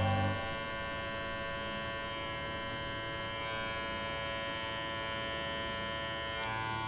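Shernbao pet trimmer running with a steady electric hum as it trims the fur on a puppy's paw pads.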